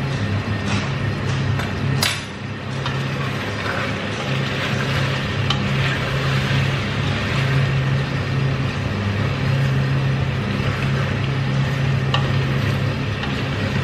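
Wooden spoon stirring meat in a stainless steel pot, with a few light clinks against the pot and a sizzle from the cooking meat. Under it is a steady low hum that dims briefly every few seconds.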